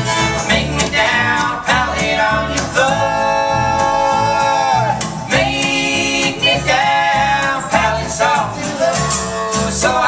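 Acoustic string band playing live: fiddle, acoustic guitar and upright bass with voices singing together in harmony. A long note is held from about three to five seconds in.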